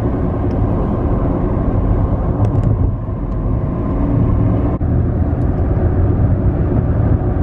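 Steady low road rumble inside a moving car: tyre and engine noise while driving along.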